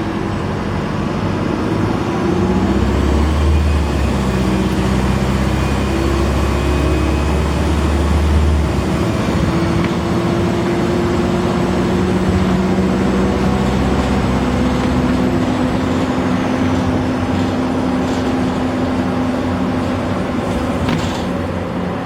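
Optare Solo M990 bus's Mercedes diesel engine and Allison automatic gearbox running under way with a whiny drivetrain note. A high turbo whistle rises a few seconds in, holds, then falls away about two-thirds through.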